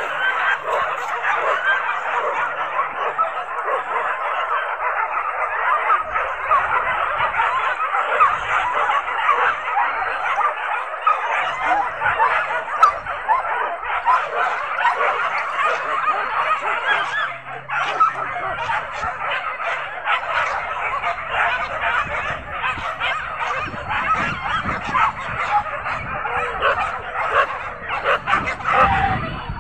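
A pack of hunting dogs barking and yelping in full chase after a wild boar, many voices overlapping without a break.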